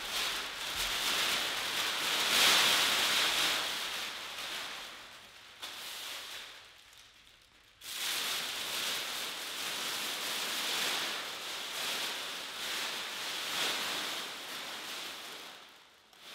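A large sheet of graphite-covered tracing paper rustling and crackling as it is lifted and moved, in swelling waves. The sound dies down about six seconds in and starts again abruptly about two seconds later.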